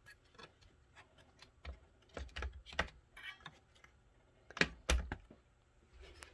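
Light clicks and knocks of 3D-printed plastic parts being handled and fitted together: the lamp board of a replica Enigma machine being set into place. Two sharper knocks, about two-thirds of the way through, are the loudest.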